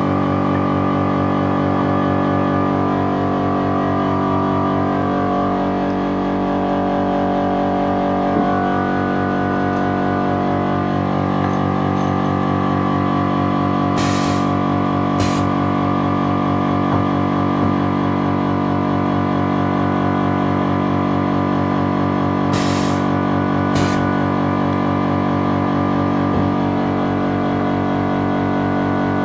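Automatic LED bulb cap (tikki) fitting machine running: a steady mechanical hum with a fast low buzz. Two pairs of short hissing bursts come about halfway through and again about three-quarters of the way through.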